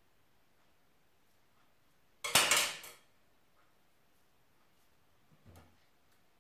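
A sharp metallic clatter with a short rattling ring about two seconds in, as a black-handled steel needle is put down on the cutting table; a faint knock follows near the end.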